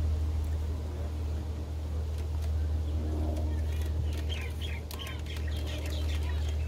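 A steady low rumble with faint distant voices, and a small bird chirping in a quick run of short high notes from about four seconds in.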